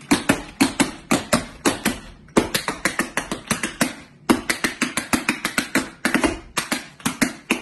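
Tap shoes striking a wooden tap board in quick rhythmic phrases of sharp taps, about five or six a second, with brief breaks between phrases.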